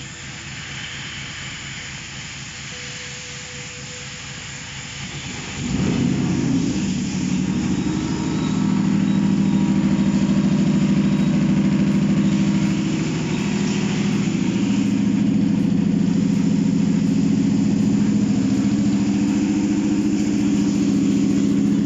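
4GR engine on a test stand, turned over quietly for about five seconds, then catching with a sudden rise in loudness and settling into a steady idle on its first start.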